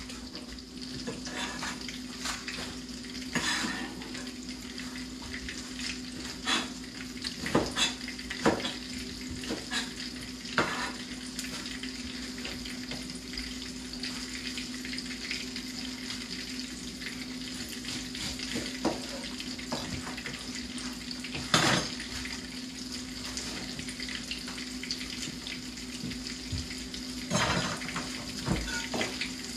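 Coconut-crusted fish fillets sizzling steadily in hot oil in a frying pan, over a steady low hum. Scattered sharp knocks of a knife and utensils on a cutting board break in now and then, the loudest about 3 seconds in, again past 21 seconds and near the end.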